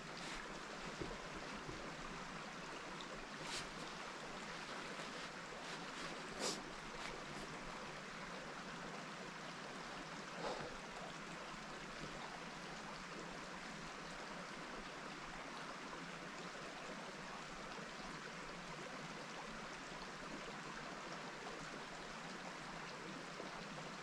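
Faint, steady outdoor background hiss while the shooter holds still, with a few small clicks and knocks in the first half.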